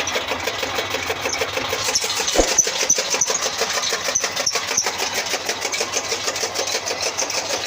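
Motor-driven chaff cutter running with a steady, rhythmic clatter of about six beats a second. A single knock comes about two and a half seconds in.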